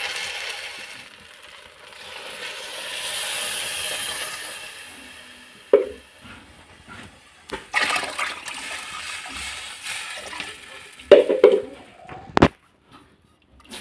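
Water poured into a hot steel pot of rice over a wood fire, splashing, about two to five seconds in; then a wooden spoon stirring the watery rice, with several knocks against the pot.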